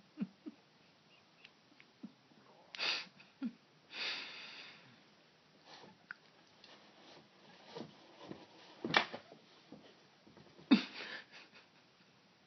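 A cat moving about inside a wooden dresser drawer full of clothes: scattered rustling and short scuffing bursts, with two sharp knocks against the wood near the end, the loudest sounds.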